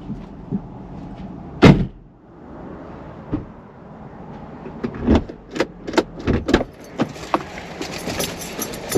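A single loud sharp thump a little under two seconds in, then a run of clicks and knocks from the Jeep's driver door being opened and someone climbing in.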